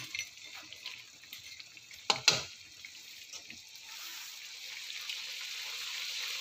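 Shrimp in a soy-sauce gravy bubbling and sizzling in a wok, the hiss growing louder over the last couple of seconds, with a metal spatula knocking against the wok a few times, most sharply about two seconds in.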